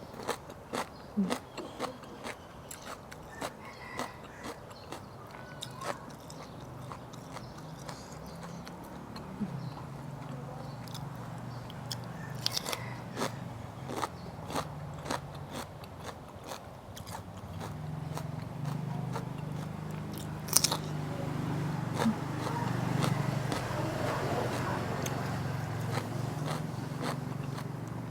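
Close-up mouth sounds of someone eating: chewing with many short, crisp crunches and clicks of biting. A low steady hum comes in and grows louder in the second half.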